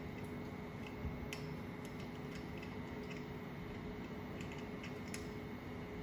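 Faint, scattered small metallic clicks as threaded locking caps are wound by hand into the grill platen's adjusters, over a steady hum.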